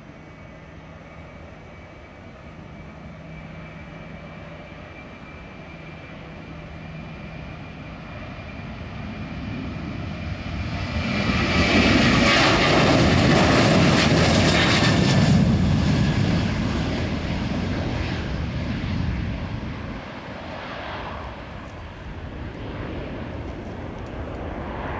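Boeing 737-800's CFM56-7B jet engines at takeoff power, a steady rumble and whine growing louder as the airliner accelerates down the runway. It is loudest about halfway through as it passes, then fades as it lifts off and climbs away.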